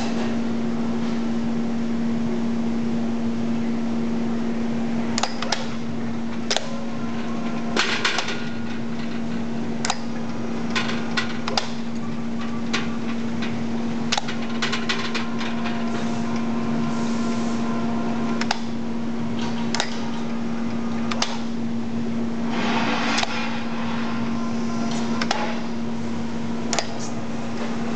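Electric chain hoist on a test rig: a steady motor hum at one pitch, with scattered sharp clicks and short metallic rattles.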